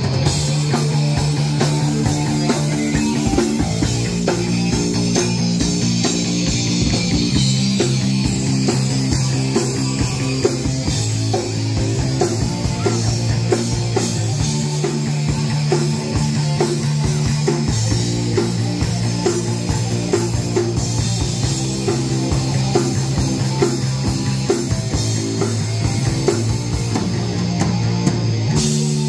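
Live rock band playing an instrumental passage: electric guitar, bass guitar and drum kit, with no singing.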